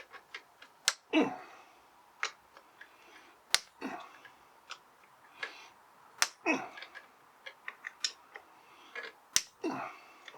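Sharp metallic clicks and knocks of hand tools working on a small motorcycle's clutch. Four louder clacks come about every two and a half seconds, each with a short falling scrape after it.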